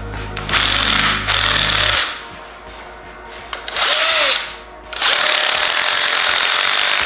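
Power tool spinning a Scotch-Brite abrasive wheel against the aluminium castings of a Honda K24 engine, cleaning out small crevices. It comes in short hissing bursts, with the longest near the end.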